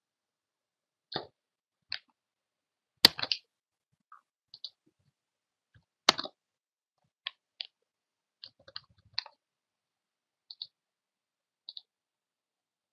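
Scattered clicks of a computer mouse and keyboard, about a dozen short separate clicks, the two loudest about three and six seconds in, with a quick cluster of several clicks near nine seconds.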